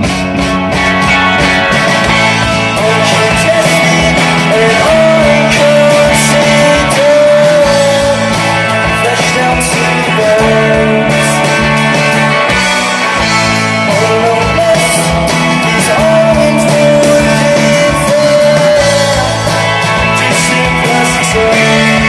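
Live rock band playing a song: electric guitars, bass guitar and drum kit, loud and steady throughout.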